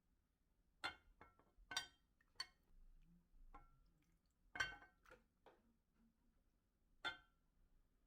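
A few faint, separate clinks and clicks in near silence, spread over several seconds.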